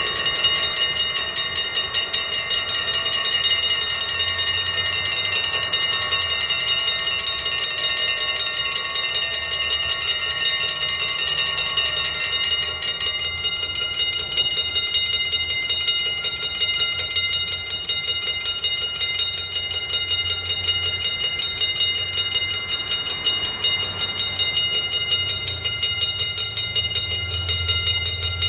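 Dutch level-crossing warning bell ringing in a fast, steady rhythm of metallic strokes. About halfway through, some of its higher ringing tones drop away, and a low rumble grows near the end.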